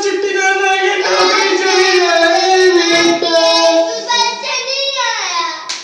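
A high-pitched voice singing drawn-out notes, sliding down in pitch near the end.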